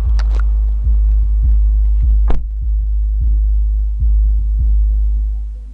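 Deep bass from a small SPL box with two 5-inch subwoofers in a car's cabin: a loud, steady very low drone that pulses on a beat a little under twice a second, with a sharp click about two seconds in, cutting off sharply near the end.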